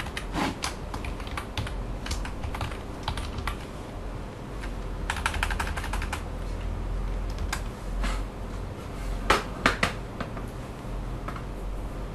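Typing on a computer keyboard: irregular keystrokes, with a quick run of keys about five seconds in and a few louder strikes around nine and a half seconds, over a low steady hum.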